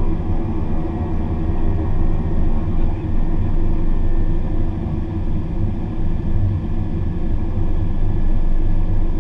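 Twin Pratt & Whitney PT6A turboprops of a Beechcraft King Air 350, heard from inside the cockpit: a steady engine and propeller drone with several constant tones as the aircraft rolls on the ground after landing.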